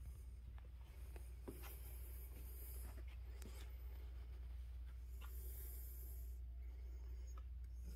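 Quiet room tone: a low steady hum with faint rubbing and a few soft clicks.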